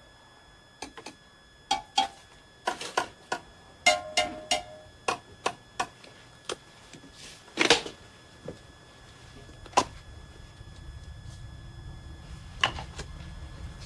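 Metal aerosol spray cans clinking and knocking against one another as they are picked up and moved one at a time: a run of sharp, ringing taps, with one longer, louder knock about eight seconds in. A low musical drone rises beneath it near the end.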